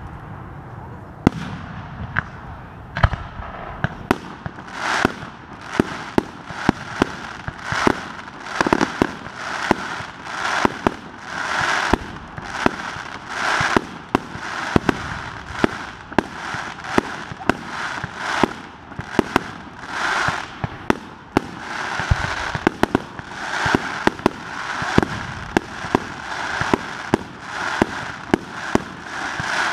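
Aerial fireworks shells launching and bursting in quick succession: a steady run of sharp bangs, one to several a second, with short hissing rushes between them.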